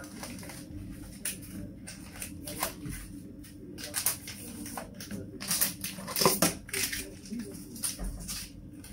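Household items being handled and put away: an irregular string of rustles, clicks and light knocks, loudest about six seconds in.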